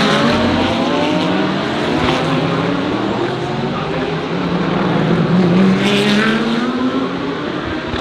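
GT3 race car engines at racing speed, the note rising and falling with throttle and gear changes and climbing to its loudest about six seconds in.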